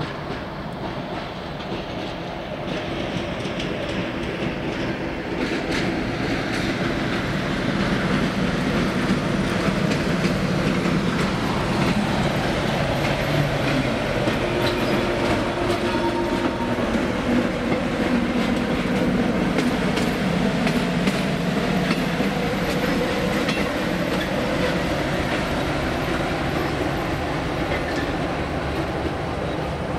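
ČSD T458.1 diesel-electric locomotive running as it moves slowly past with a passenger coach, its engine note shifting in pitch, with wheels clicking over the rails. It grows louder over the first several seconds as it comes closer, then holds steady.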